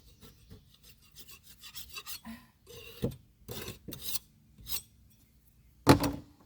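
Old, chipping paint being scraped and rubbed off a boat hull by hand in irregular rasping strokes. The strokes are faint at first, grow louder after a few seconds, and the loudest is a sharp scrape near the end.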